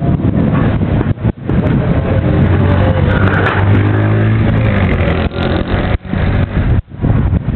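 A motor vehicle drives past with its engine running; the engine hum is strongest around the middle. Heavy wind buffets the microphone throughout.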